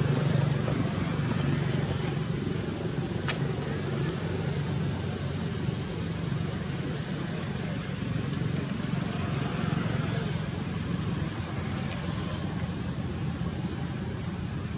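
Steady outdoor background noise with a constant low hum, and a single sharp click about three seconds in.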